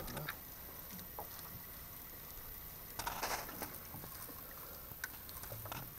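Quiet open-water ambience in a wooden rowboat: a low, steady background with a few faint clicks and a brief scuffing sound about three seconds in, the small handling noises of anglers in the boat.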